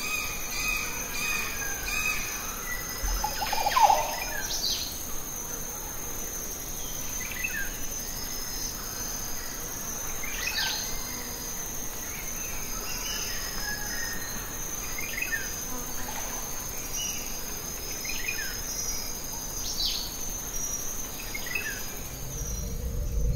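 Steady high-pitched insect trilling, with a bird's short downward chirps repeated every few seconds and one brief louder sound about four seconds in.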